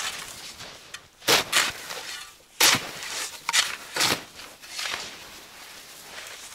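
Snow shovels cutting into and scraping through deep snow: about half a dozen irregular crunching scrapes as two people dig.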